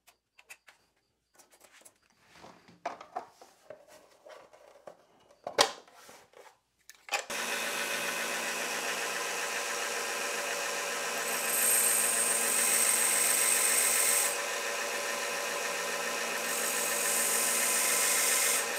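Handling clicks and knocks as a belt is fitted on a 1x30 belt sander, with one sharp snap about five and a half seconds in. The sander then starts about seven seconds in and runs steadily, and twice a pizza cutter's steel wheel is held against the moving belt, adding a loud grinding hiss for a few seconds each time.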